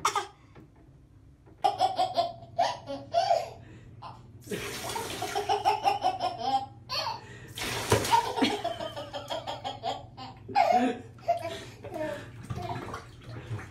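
Baby laughing in short repeated bursts in a bathtub. Water runs from a handheld shower head or bottle into the tub from about four and a half seconds in for roughly three seconds, then briefly again.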